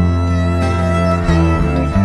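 Instrumental background music with bowed strings playing held notes over a low sustained bass, the notes changing every half second or so.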